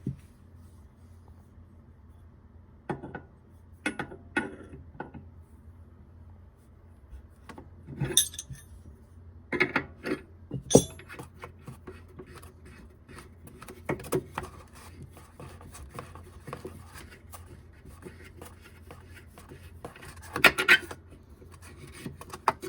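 Metal hand tools and pipe fittings clinking and clattering as they are handled and set down, in scattered short knocks, over a steady low hum.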